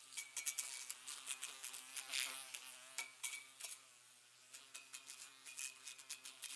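A housefly buzzing around a lightbulb, its steady buzz broken by rapid little ticks as it bumps against the glass. The ticks come thick at first, ease off briefly past the middle, then resume.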